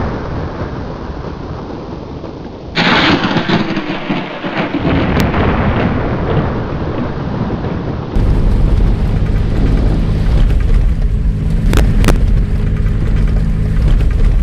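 Rumbling, rushing wind and rain noise, then from about eight seconds in a pickup truck driving across open grassland, its engine running steadily under the wind and road rumble.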